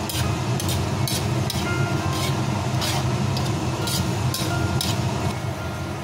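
Metal ladle scraping and clinking against a wok as fettuccine is tossed in meat sauce, in irregular strokes about two a second, over a steady low hum.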